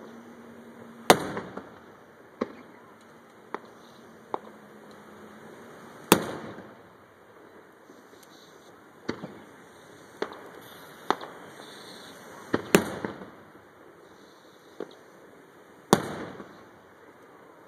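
Aerial firework shells bursting: four loud bangs, each trailing off in an echo, with smaller cracks and pops scattered irregularly between them.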